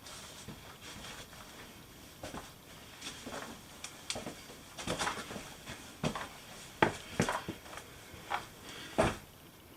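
Irregular scuffs, scrapes and knocks of a person clambering down into a small rock cave, with sharper knocks from about halfway on.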